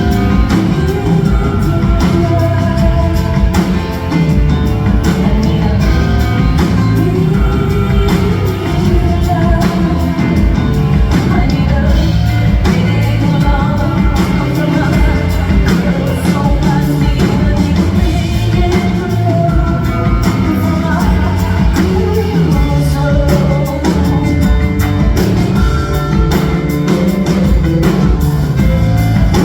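Live rock concert performance: a woman singing over a full band with heavy bass and steady drums.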